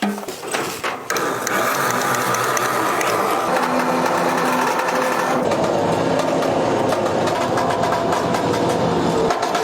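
Winch motor whirring steadily under load as it drags the buried car out, starting about a second in.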